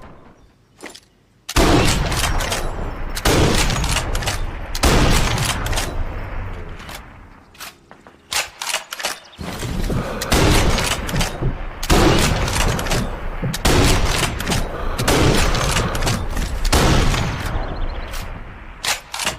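Mosin–Nagant bolt-action rifle firing a string of shots about a second and a half apart, each with a long echoing tail. About halfway through there is a pause of roughly two seconds with a few light clicks before the shots resume.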